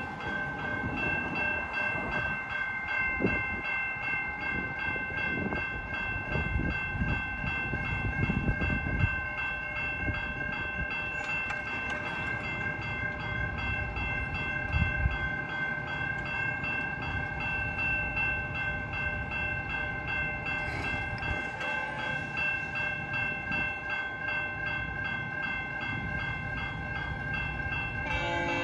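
Railroad crossing warning bells ringing in a steady, rapidly repeating pattern while the crossing gates come down, over a low rumble of road traffic.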